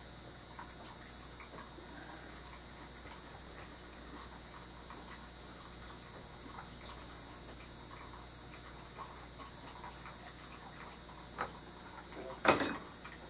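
Faint, irregular light taps and clicks of a paintbrush working oil paint onto a painting panel, then a single louder knock near the end.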